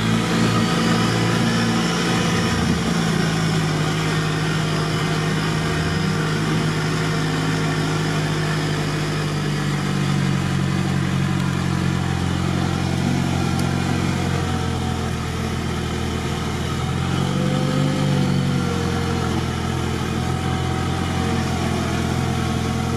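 Off-road 4x4 engine running steadily at low revs, with the engine speed shifting about ten seconds in and rising and falling briefly about three-quarters through.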